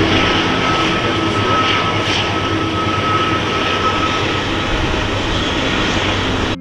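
A train passing, a loud steady rumbling noise with a thin high tone held over it for about four seconds.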